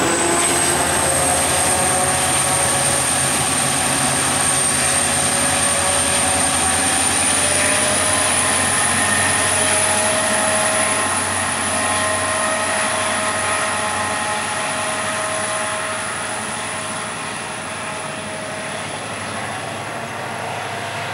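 Rear helper diesel locomotives of a freight train, TCDD DE24279 and DE33069, running away along the line. Their engines' steady drone slowly fades as they recede, over a thin high whine that edges up in pitch.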